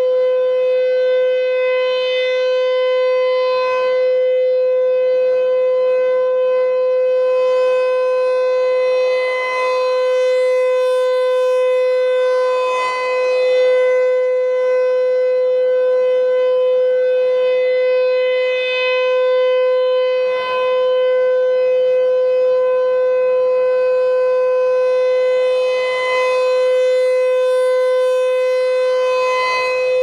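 American Signal T-128 rotating outdoor warning siren sounding its steady alert: one loud, unchanging tone with no rise or fall in pitch, swelling and fading a little as the horn turns.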